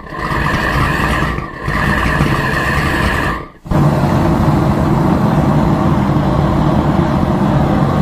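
Propane burner of a KK8 gas melting kiln just lit and burning: a roaring flame with a ringing, tonal note that fades out twice. About three and a half seconds in, it settles into a steady, deeper roar.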